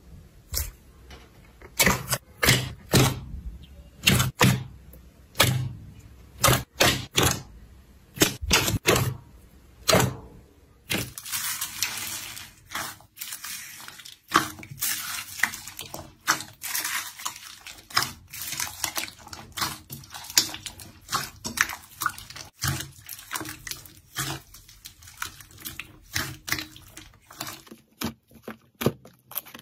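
Hands squeezing and kneading slime. The clear slime gives separate wet pops and squelches, roughly one to two a second. About eleven seconds in, this turns to a denser crackling as hands press into orange slime mixed with small beads.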